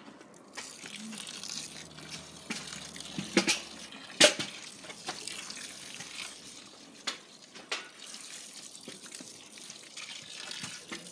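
Water pouring steadily from a metal watering can into a dug hole in the soil, wetting it. A few sharp knocks cut through the pour, the loudest about four seconds in.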